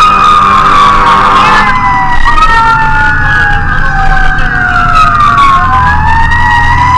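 Fire engine siren wailing: a held high tone, then slow sweeps down and back up in pitch, with a second siren tone gliding the other way across it. A steady engine rumble runs underneath.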